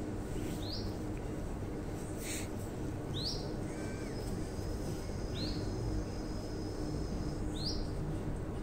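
A caged small yellow songbird giving short single chirps, about one every two seconds, over a steady low hum.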